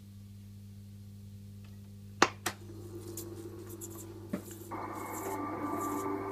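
Scophony Baird Mk I valve reel-to-reel tape recorder humming steadily: mains hum that persists after all the capacitors were replaced, which the owner hopes the hum dinger may reduce. About two seconds in, two sharp clunks come from the controls as the reels start turning, with another click a couple of seconds later. Near the end a fuller, steady sound rises over the hum and grows louder as the machine runs.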